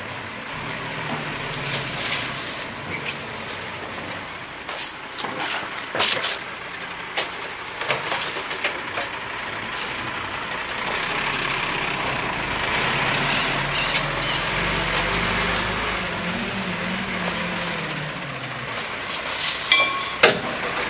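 Rear-loader garbage truck working a trash pickup: the diesel engine runs steadily under scattered knocks and clatter of cans and bags. About halfway through, the engine speeds up for a few seconds and then settles, and a cluster of loud bangs comes near the end.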